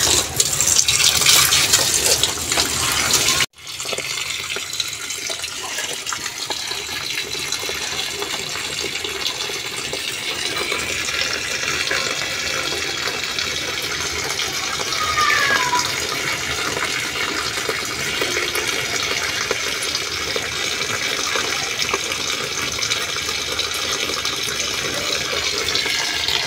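Tap water pouring in a steady stream into a plastic basin of school uniforms, splashing onto the wet cloth as a hand presses the clothes down to soak them. The sound cuts out abruptly for a moment about three seconds in, then resumes.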